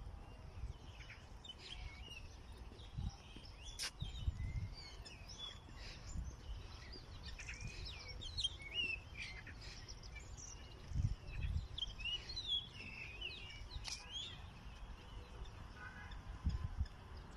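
Several small birds chirping and singing at once in short, overlapping calls, with a low rumble that comes and goes underneath.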